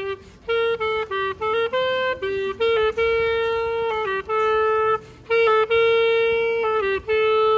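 Clarinet playing a slow melody, one held note after another, with brief breaks for breath about half a second in and again about five seconds in.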